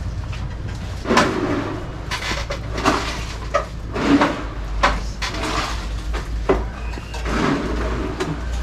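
Irregular knocks, bangs and clatter of hand work on a concrete pour into beam forms, over a steady low rumble.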